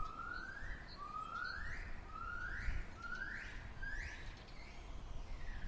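An animal call: a series of about six rising whoops, each sliding up in pitch, coming quicker and climbing higher as the series goes on, over a low background rumble.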